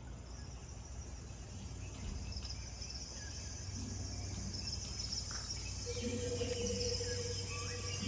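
Steady high-pitched chirring of crickets or similar night insects over a low hum. About six seconds in, a held whistle-like tone joins, followed by a few short chirping calls.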